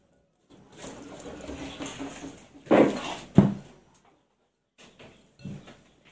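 Rinsed, sliced bitter gourd (ampalaya) being tipped into and handled in a glass bowl: a rustle of wet slices, then two loud knocks about three seconds in, and a few softer taps near the end.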